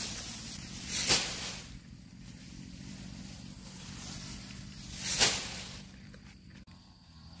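Tall thatching grass rustling as it is cut and handled: two brief swishing rustles about four seconds apart, over a faint steady hiss.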